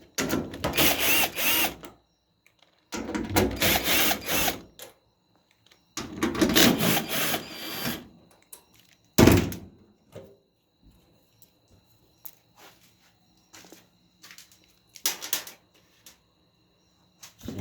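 Cordless drill/driver running in three bursts of about two seconds each, backing out the screws that hold a dryer panel. These are followed by a sharp knock about halfway through and a few light clicks.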